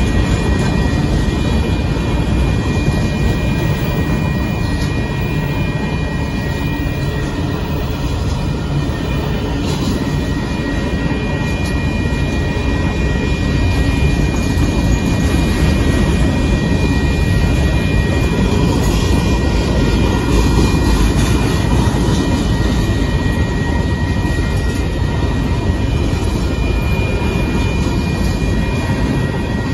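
Union Pacific freight train's covered hopper cars rolling past at a grade crossing: a steady rumble and clatter of steel wheels on the rails. A thin, steady high ringing tone sits over it throughout.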